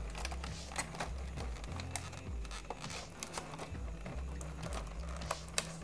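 Clear plastic blister tray of a boxed action figure being handled, giving scattered sharp clicks and crinkles of the thin plastic.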